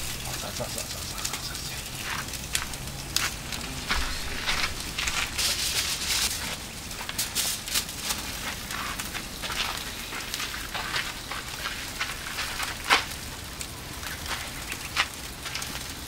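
Wood fire crackling and popping in a small folding fire pit, with skewered sausages sizzling on the grate over the flames; one sharp pop stands out about thirteen seconds in.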